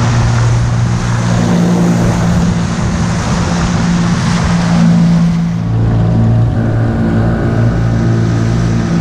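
Boat motor running steadily under way, with a rush of wind and water over it. About halfway through the rushing eases while the motor keeps running.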